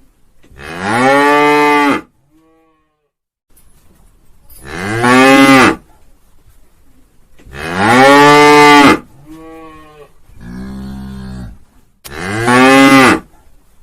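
Cows mooing: four loud, drawn-out moos spaced about four seconds apart, each rising then falling in pitch, with a fainter moo or two just after the third.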